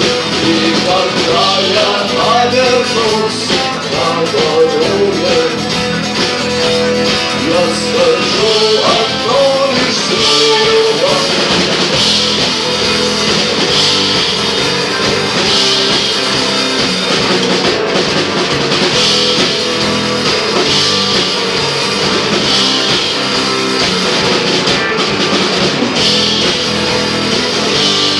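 Live rock band playing an instrumental passage with guitar and drum kit, a wavering lead melody standing out over the first ten seconds or so.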